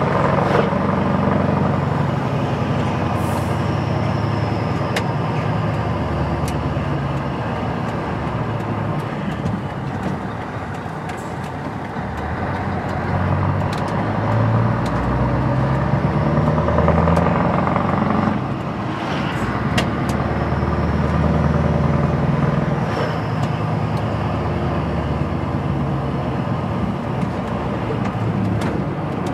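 Scania 164 L 480's V8 diesel heard from inside the cab while driving, the engine note falling and climbing again several times as the truck slows and pulls away, over steady road noise.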